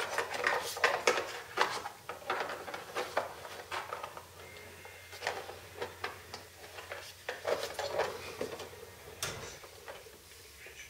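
Irregular small clicks, taps and light clatters of plastic and metal parts being handled and adjusted: the landing gear door linkage of a model jet airframe.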